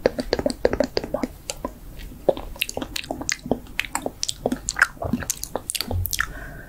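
Close-miked ASMR mouth sounds: wet chewing and mouth clicks in a rapid, irregular run, miming eating.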